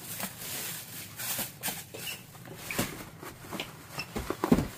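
Plastic bag crinkling and cardboard rustling as a picture frame is pulled from its wrapping and hands dig into a cardboard box, in scattered short rustles and clicks. A louder bump comes near the end.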